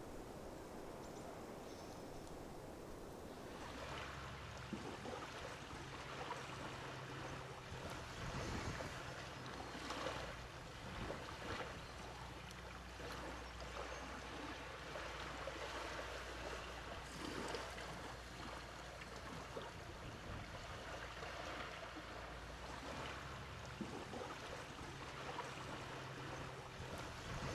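Calm, shallow seawater lapping gently at a sandy beach: a soft steady wash that grows fuller about four seconds in, with small waves surging every few seconds.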